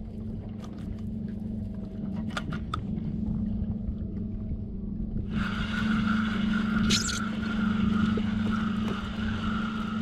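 A steady low hum under scattered clicks and knocks; about halfway in, a steady high whir starts and holds as a fishing reel is cranked, bringing in a small hooked fish.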